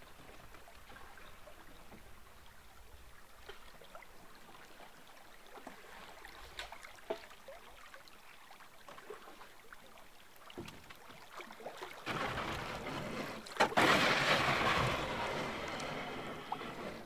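Canoe gliding down a shallow creek: faint water sounds with small scattered knocks, then from about twelve seconds in a few seconds of much louder rushing water as the canoe runs a riffle, with one sharp knock near the start of it.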